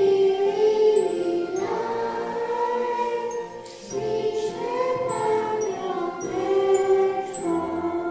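A small group of young children singing a Christmas carol together into a microphone, with a short breath-break a little before four seconds in; the singing ends near the end.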